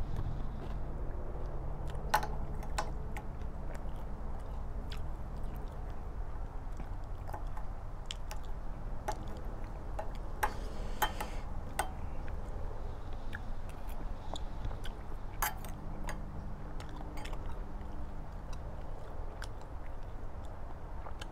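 A person eating curry with a spoon: chewing, with short sharp clicks of the spoon against the bowl every few seconds.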